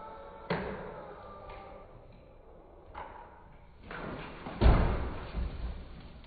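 An RC excavator model crashing: a sharp knock, a smaller knock, then a heavier thud about four and a half seconds in, the loudest of the three.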